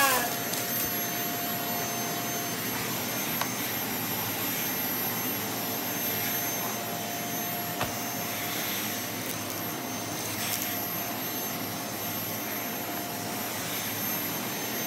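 Vacuum cleaner running steadily over carpet, a constant rushing noise with a high whine, broken twice by a brief sharp click.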